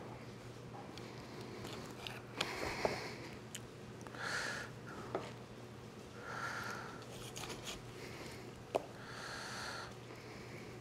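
Kitchen knife cutting raw chicken wings apart on a plastic cutting board, with a few sharp knocks of the blade against the board. Three soft breaths come in between, over a faint steady hum.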